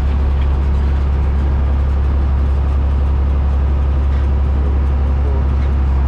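Tractor engine running steadily under load as it pulls a hay rake: a constant low drone with no change in speed.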